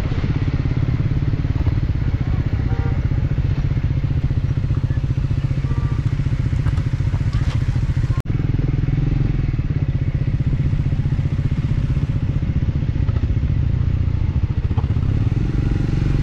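Royal Enfield Classic 350's single-cylinder engine running steadily as the bike rides along a rough gravel road, with a brief click and dropout about eight seconds in.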